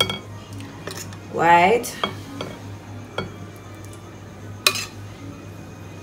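Metal spoon clinking against a stainless steel saucepan while glaze is scooped and spooned out: a few light clicks and one sharper clink about three-quarters of the way through, over a steady low hum.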